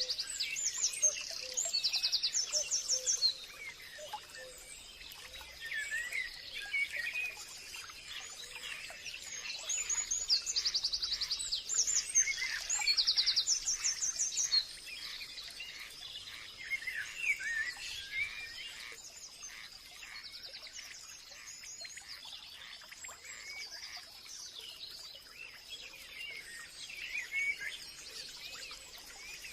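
Several birds singing and calling in a forest, with bouts of fast trilled song near the start and again about ten seconds in, then softer scattered chirps.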